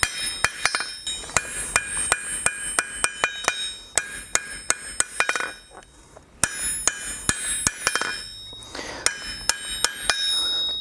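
Blacksmith's hammer striking hot steel bar stock on the anvil, a quick steady run of ringing blows about three a second, with a short pause a little past halfway before the strikes resume. The blows are drawing out a taper into an elongated diamond-shaped handle.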